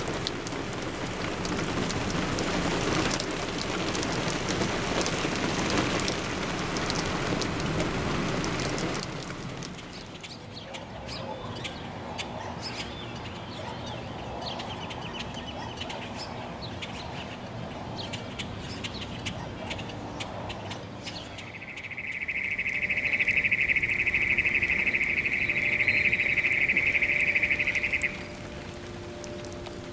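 Steady rain falling, which gives way after about nine seconds to birds chirping over a quieter background. Later a loud, steady, high-pitched buzz comes in for about six seconds and cuts off suddenly.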